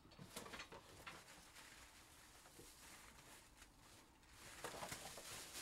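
Near silence: faint room tone with scattered light clicks and rustling, a little busier near the end.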